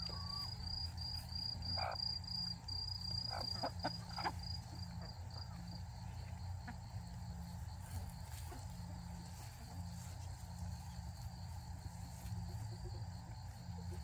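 An insect trilling: a steady, rapidly pulsing high-pitched song that fades out a little past halfway. A few short, soft sounds come between about two and four seconds in.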